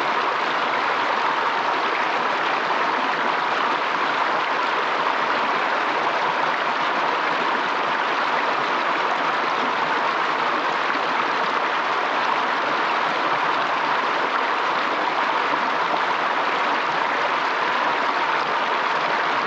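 Fast, turbulent stream rushing steadily: an even, unbroken hiss of moving water.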